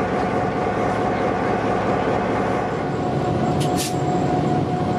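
EMD GP9 diesel-electric locomotive running steadily, its 16-cylinder 567 engine's rumble carrying a steady whine. A brief hiss sounds a little past three and a half seconds in.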